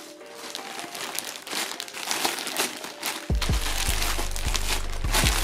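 Plastic postal packaging crinkling as it is handled and opened by hand: a grey plastic mailer and the clear plastic bag around a jersey, with many sharp, irregular crackles. About three seconds in, background music with a heavy bass beat starts under it.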